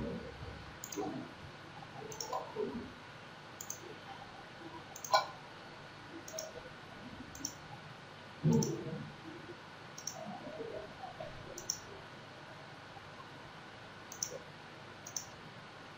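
Computer mouse clicks, repeated many times at uneven intervals of about half a second to a second, with a low muffled thump a little past halfway.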